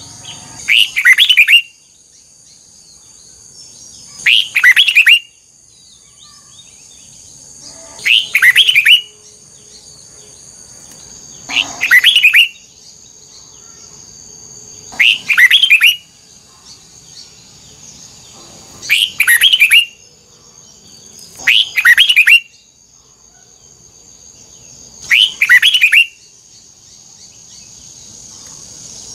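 Red-whiskered bulbul singing loud, short double-note phrases about every three to four seconds, eight in all, with a faint steady high whine underneath.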